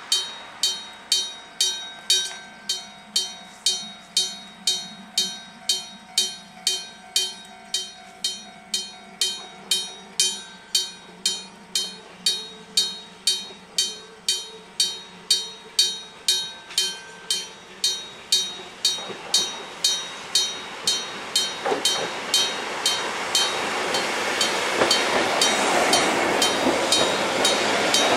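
Level-crossing warning bell striking steadily, just under two ringing strokes a second. From about two-thirds of the way through, the running noise of an arriving ex-Kintetsu electric train grows louder and covers the bell near the end.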